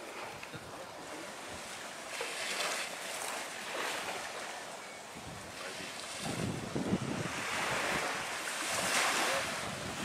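Small waves washing onto a beach, the surf swelling and easing every few seconds, with wind rumbling on the microphone about six to seven seconds in.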